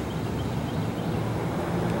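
Steady low hum of a road vehicle's engine running near the microphone, over general traffic noise; it grows slightly louder near the end.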